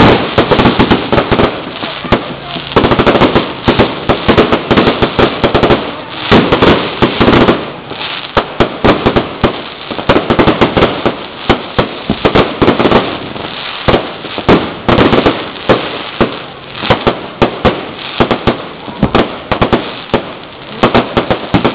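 Aerial fireworks display overhead: shells and cakes bursting in rapid succession, a dense, unbroken run of sharp bangs and crackles, several a second, loud and close from right beneath the launch platforms.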